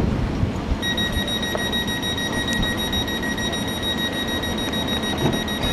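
A steady, high-pitched buzzer-like tone starts about a second in and holds unchanged for about five seconds before cutting off. Under it runs the low rumble of an electric multiple unit approaching the platform.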